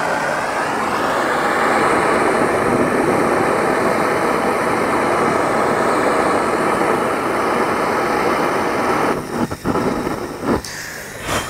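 MAP gas hand torch burning with a steady rushing noise as it heats an aluminum radiator core for brazing. About nine seconds in, the flame noise drops and falters unevenly, the sputtering a MAP gas torch gives when its bottle is tipped upside down.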